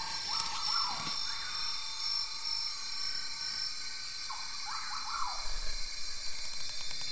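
Steady high-pitched chorus of night insects, with two sweeping calls that rise and fall, one about half a second in and one about four and a half seconds in.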